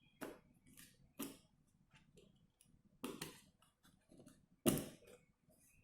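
Sharp clicks and taps of small hard parts being handled on a workbench: four louder knocks spread a second or two apart, with fainter ticks between, as a tablet's core board and housing are handled.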